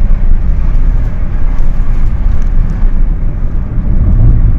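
Road noise inside a moving car's cabin: a loud, steady low rumble with a wash of noise above it.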